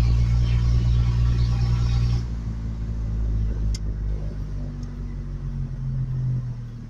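Truck engine running: a loud, steady low hum that drops suddenly to a quieter level about two seconds in, as if easing off to idle, with a faint click near the middle.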